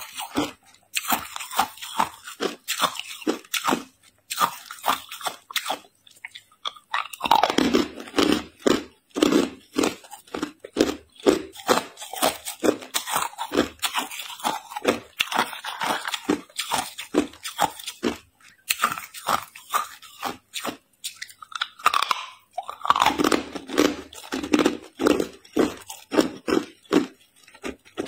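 Hard ice cubes being bitten and chewed: a rapid, continuous run of crunches, denser and louder for a few seconds about a quarter of the way in and again near the end.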